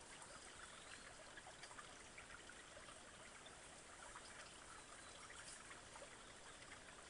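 Near silence, with a faint, steady trickle of a creek.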